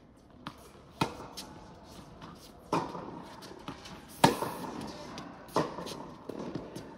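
Tennis rally in an indoor hall: sharp pops of the ball off rackets and the court surface, roughly every one and a half seconds, each with a short echo from the hall. The loudest pop comes about four seconds in.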